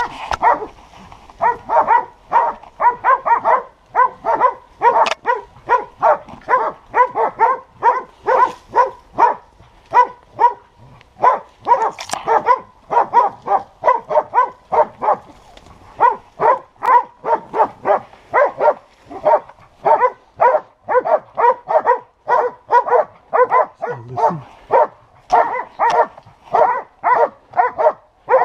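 Hunting dogs barking without a break, about two to three barks a second, baying at a wild boar they are holding at bay in the brush.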